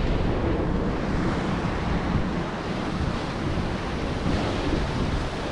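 Wind buffeting the microphone in a steady, gusty rumble over the rush of river water running over rocks.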